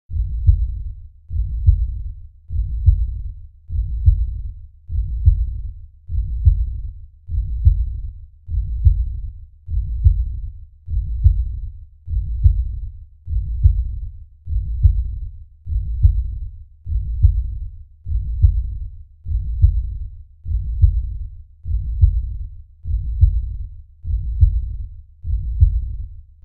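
Deep human heartbeat sound effect: a slow, steady lub-dub pulse, each beat a low double thump, about one beat every 1.2 seconds.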